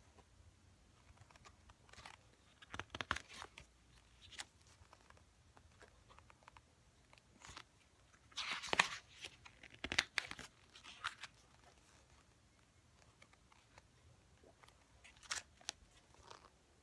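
Glossy pages of an album photobook being turned and handled: a series of short paper rustles and flaps spread out, the longest and loudest about eight seconds in.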